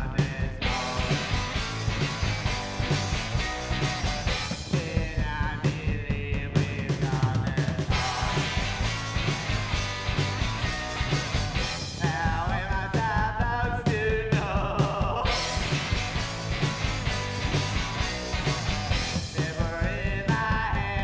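A rock and roll band playing live: electric guitar, electric bass and a drum kit.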